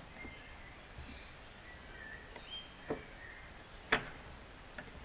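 A few light metallic clicks as a screwdriver works at the metal retaining tab and ball-socket end of a tractor cab door's gas strut, the sharpest click about four seconds in.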